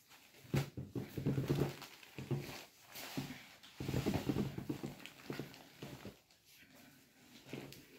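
Silk saree fabric handled and spread out close to the microphone: uneven rustling and soft handling bumps that come and go.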